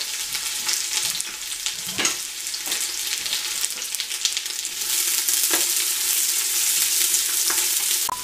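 Sliced onions frying in olive oil in a stainless steel pressure cooker pot, sizzling steadily as they soften without browning. The sizzle grows louder about five seconds in, and a few light clicks are heard.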